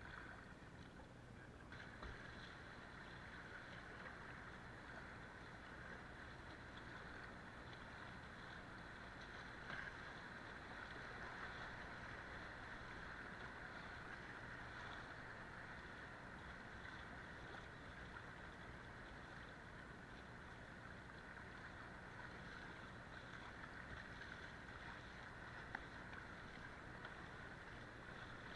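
Steady rush and splash of river current around a kayak's bow and paddle as it is paddled through choppy water.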